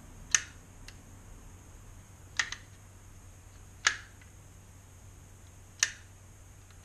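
Audi S4 B5 door lock mechanism's latch being pulled shut and released by hand: four sharp clicks about one and a half to two seconds apart, one of them doubled. The lock's switch is suspected of being faulty, making the footwell light flicker and fail to turn off.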